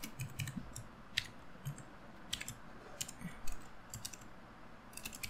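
Typing on a computer keyboard: slow, irregular single keystrokes with short pauses between them.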